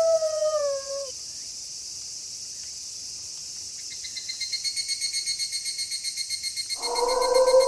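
A wolf howl ends about a second in, sliding down in pitch, leaving a steady high chirring of night insects. About halfway a fast pulsing cricket trill comes in, and near the end another long, steady wolf howl begins.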